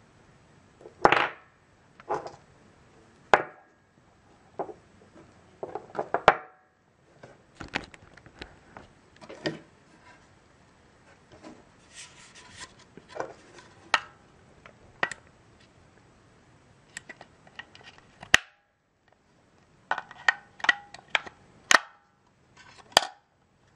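Duracell AA NiMH rechargeable batteries and a plastic battery charger being handled: irregular sharp clicks, knocks and short rattles of hard plastic and metal-cased cells, with a quick flurry of clicks about six seconds in and again near the end.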